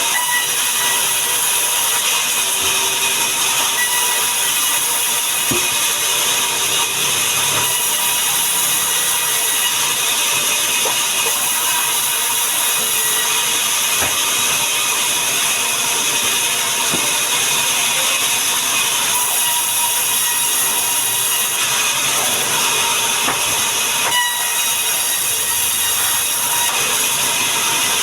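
Sawmill saw running steadily: a loud, even hissing rush with a faint steady whine and no breaks.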